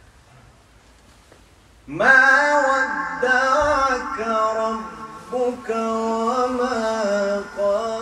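A man's melodic Qur'an recitation. After a pause of about two seconds he begins a new phrase, drawing out long notes and bending them up and down in ornamented turns.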